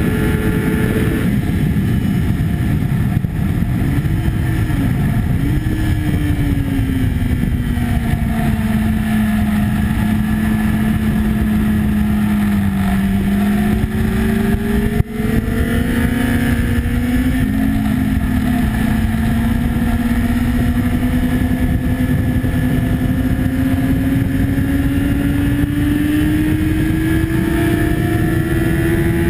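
Sport bike's engine heard onboard over wind rush at track speed. The engine note starts high, drops sharply about a second in as the bike brakes, with a couple of short rises and falls in pitch. It stays low through a slow corner around the middle, then climbs steadily as the bike accelerates hard out of it.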